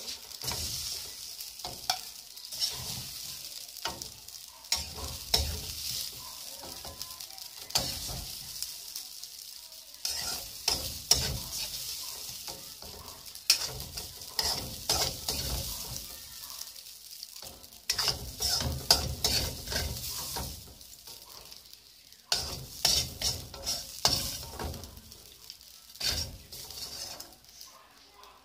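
A metal spoon scraping and clinking against a metal wok as cooked rice is stirred and scooped out, over a steady sizzle from the hot pan.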